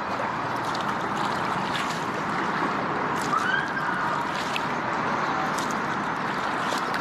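Kayak paddling: water sloshing and gurgling against the hull with light splashes from the paddle. A short, faint high call rises and falls about three and a half seconds in.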